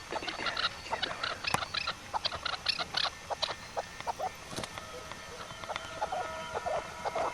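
Birds calling: a rapid, overlapping series of short calls.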